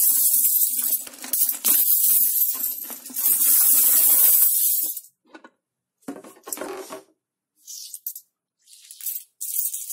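Coins rattling inside a plastic piggy bank as it is shaken upside down, clinking out onto a tile floor. The rattling is continuous for about five seconds, then comes in short bursts with silent gaps.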